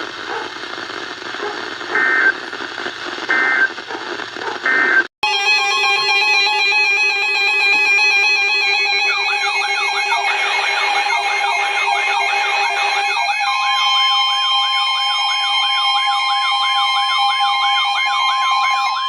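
Emergency Alert System alert audio. Three short beeps sound over radio hiss, then a loud steady multi-tone alarm cuts in suddenly. A fast rising-and-falling siren wail joins it, and then a steady tone just above 1 kHz, like the 1050 Hz NOAA Weather Radio alert tone.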